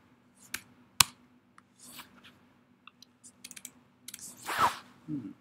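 Scattered keystrokes on a computer keyboard while a short word is typed: a few single taps, one sharper click about a second in, then a quick run of several taps. A brief louder rushing sound follows about four and a half seconds in.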